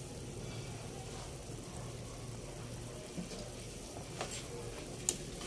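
Beef papaitan broth at a rolling boil in a stainless steel pot, bubbling steadily. Two sharp clicks come near the end.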